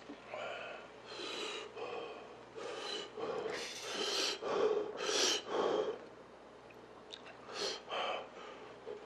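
A person eating steaming-hot beef intestine hot pot, blowing and slurping in a run of short breathy bursts, loudest in the middle, with two more near the end.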